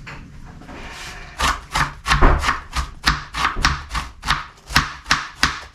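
Knife shredding a head of cabbage against a plastic chopping board: a fast, even run of crisp cuts, about three to four a second, starting about a second and a half in.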